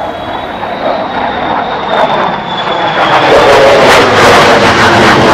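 Jet noise from two F-35C fighters' F135 turbofans flying overhead, growing much louder about three seconds in. A thin high whine rides on top early on and falls slightly in pitch.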